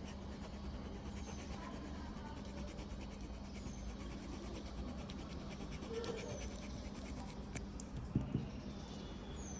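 Small rubber eraser rubbed back and forth over a circuit board's gold-finger edge contacts, a faint, steady scratching as it scrubs off the oxidation layer.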